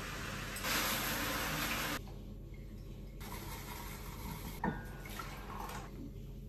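Kitchen tap running for about three seconds, louder for a second or so in the middle as water fills a container, then turned off. A single light clink of crockery follows a little later.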